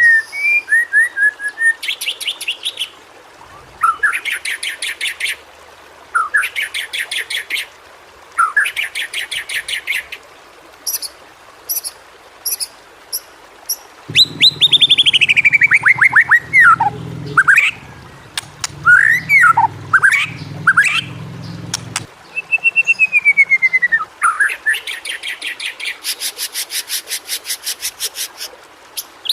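White-rumped shama singing: phrases of fast, rapidly repeated notes alternating with loud slurred whistles that glide down in pitch, separated by short pauses. A low hum runs under the song for several seconds in the middle.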